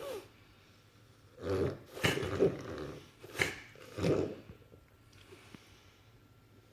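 Dog reverse sneezing: a series of quick, forceful noisy inhalations in four short bursts over about three seconds, the fit stopping a little before the end. It is a spasm of the soft palate and throat, the dog pulling air hard in through the nose.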